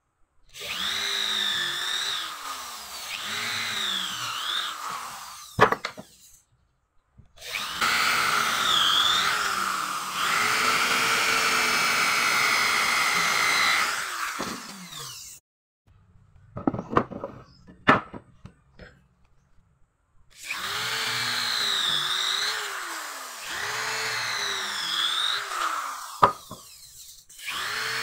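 Handheld electric drill boring holes into a wooden board. It runs in three long spells with short pauses between them, the motor pitch dipping and recovering as the bit bites into the wood. There are a few sharp knocks in the pauses.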